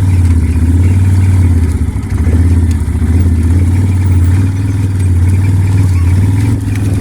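A vehicle engine running steadily at a low, even pitch, dipping briefly about two seconds in.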